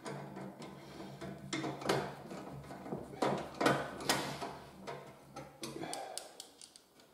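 Irregular clicks and light knocks of small bolts and a hand screwdriver being fitted and turned into the metal brackets of a pull-out bin frame.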